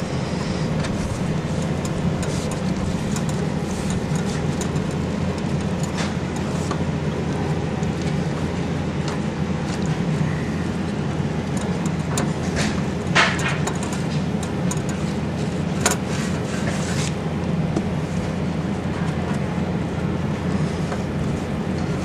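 A steady low mechanical drone, with a few short clicks and knocks from hands wrapping a wet rag around a brass expansion valve and its copper tubing.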